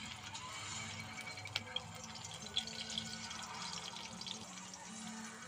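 Tuyo (dried salted fish) frying in hot oil in a wok: a steady sizzle with crackling and a few sharp pops.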